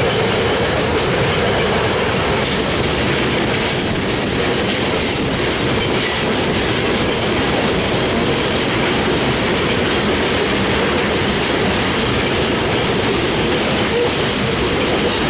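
Freight train of tank cars rolling past close by: a loud, steady rumble and rattle of steel wheels on the rails, with a few sharper clicks.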